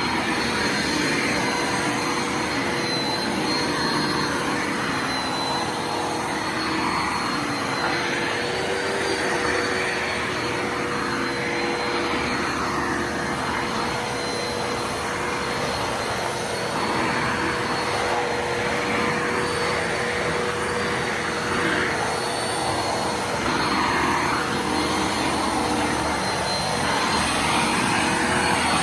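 Bissell Lift-Off Multi Cyclonic Pet upright vacuum running steadily, its motor giving a constant hum with a high whine over the rush of air, the noise swelling and easing a little as it is worked across the floor.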